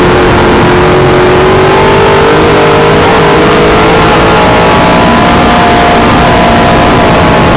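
V8 engine of a dirt modified race car, heard from inside the cockpit, running hard on track. Its pitch rises slowly through the middle and drops back a little near the end. The sound is loud and saturated.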